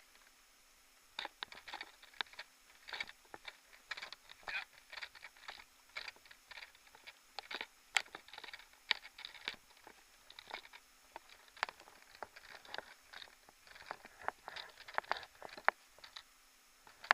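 Footsteps crunching in snow: irregular crisp crunches in clusters about once a second, at a walking pace, stopping near the end.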